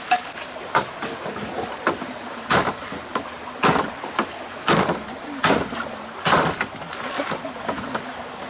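A series of sharp knocks or strikes, roughly one a second, over a steady rushing hiss.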